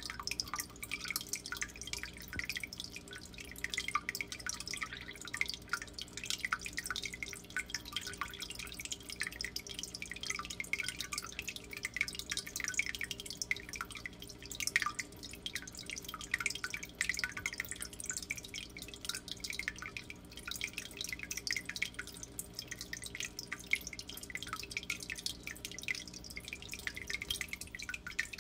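Aquarium filter water trickling and dripping into a turtle tank in a constant, irregular patter. A steady low hum runs underneath.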